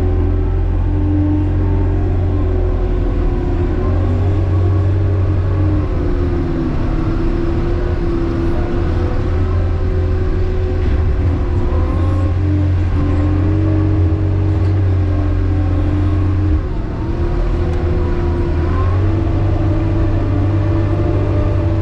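ASV RT-65 compact track loader's diesel engine and drive running under load, heard from inside its cab: a steady low drone with a whine above it that rises and falls in pitch as it works. The sound eases briefly about sixteen seconds in.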